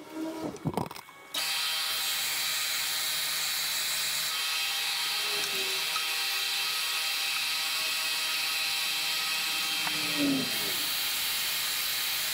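An electric workshop power tool switches on about a second and a half in and runs steadily with a whining motor and a loud hiss, after a few light clicks.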